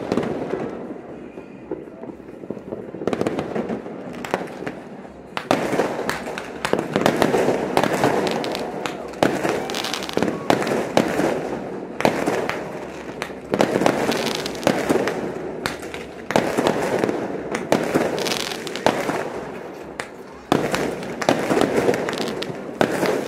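Fireworks going off in rapid volleys of bangs and crackling, a new barrage starting every few seconds.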